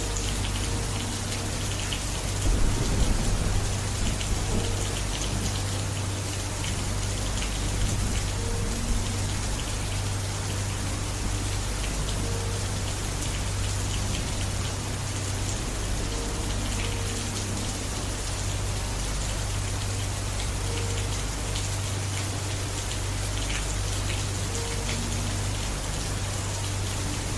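Steady, heavy rain falling on a surface, an even hiss of drops. A brief low rumble comes about three seconds in, with a smaller one near eight seconds.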